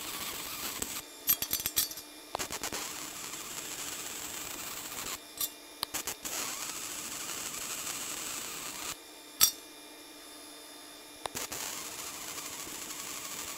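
MIG welding arc on steel, crackling and hissing steadily at low settings (about 90 A, 17 V). The arc stops and restarts three times, with sharp clicks in the pauses, the loudest about nine seconds in.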